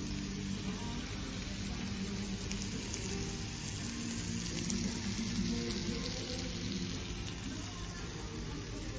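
Food sizzling and crackling on hot cast-iron sizzling plates, a steady hiss with fine crackles, over background music.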